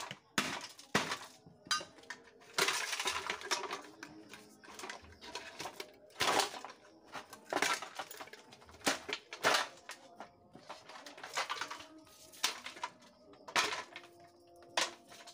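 Hammer blows and metal clanks as an electric rice cooker is dismantled. Irregular sharp knocks, some ringing briefly, with a longer rattling, scraping stretch about three seconds in as its sheet-metal parts are worked loose.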